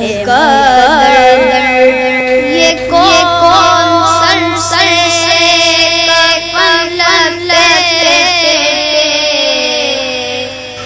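A boy's voice singing a naat, an Urdu devotional song in praise of the Prophet, with quick ornamented turns at first, then long held notes with a wavering pitch and a slow falling glide near the end.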